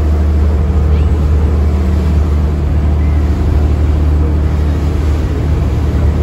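Tour boat's engine running steadily under way with a low, even drone, over a hiss of water and wind.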